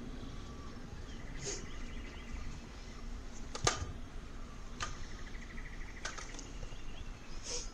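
Jungle ambience of birdlike chirps and rapid trills, with scattered sharp clicks, the loudest about three and a half seconds in.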